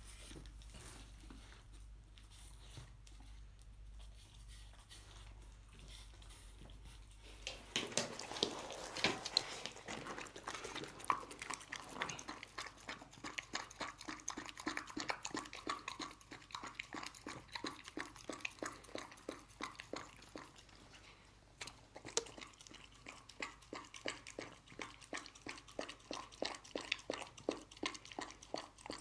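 A dog eating chunky canned wet dog food from a ceramic bowl: quick, irregular wet chewing and smacking that starts about seven or eight seconds in after a quiet stretch, pausing briefly near two-thirds of the way through.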